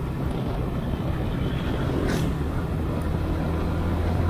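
Motorcycle engine running steadily while riding, under a haze of wind and road noise, with a brief hiss about two seconds in.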